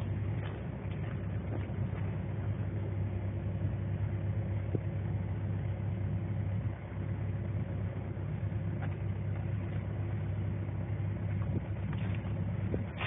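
Mini excavator's diesel engine running steadily, a low drone with no change in speed.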